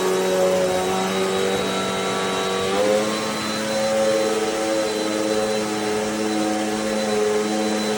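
Amazon Basics 720-watt upright bagless vacuum cleaner running steadily, its motor whine shifting up slightly in pitch about three seconds in.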